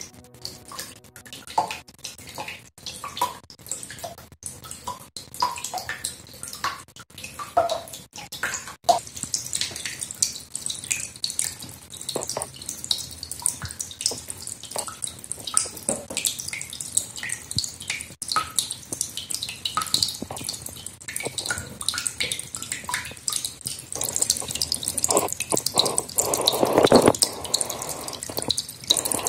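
A thin stream of water pouring onto the spinning plastic blades of a small homemade waterwheel and splashing into a basin of water, with many small splashes and drips. The splashing grows louder in the last few seconds.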